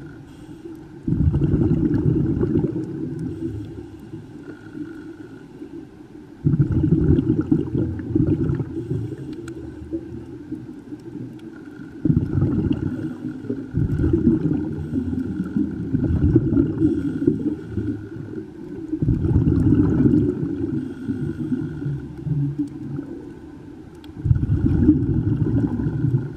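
Scuba regulator exhaust bubbles heard underwater, a gurgling rush of bubbles about every five to six seconds, each starting suddenly and fading as the diver breathes out.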